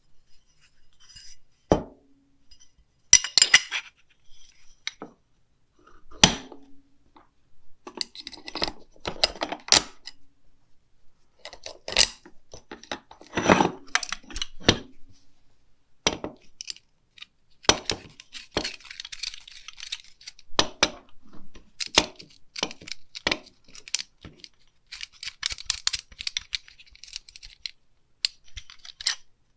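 Small steel 1/4-20 cap screws and nylon-insert lock nuts clinking against a steel mower deck sheave as they are fitted by hand: a string of scattered light metallic clicks and rattles, with a few louder knocks.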